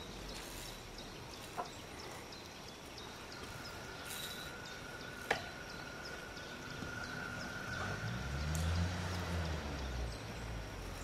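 Outdoor background noise with a faint steady high tone and light regular ticking, two sharp clicks about one and a half and five seconds in, and a low rumble that swells and fades around eight to ten seconds in.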